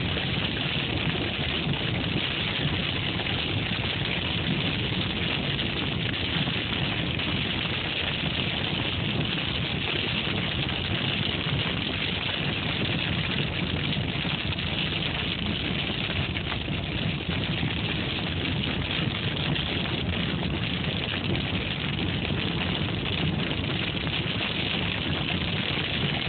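Car driving on a rain-soaked highway, heard from inside the cabin: a steady rush of tyre and road noise on wet pavement.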